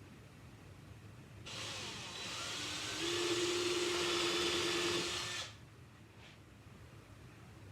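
A power tool's electric motor starts up, rises in pitch to a steady whine, runs about four seconds and then stops suddenly.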